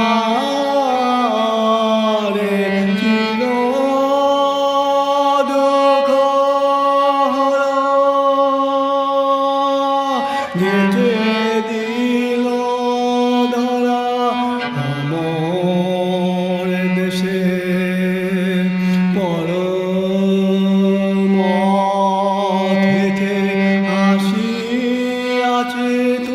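A cello bowed in long sustained notes, sliding from one pitch to the next every few seconds.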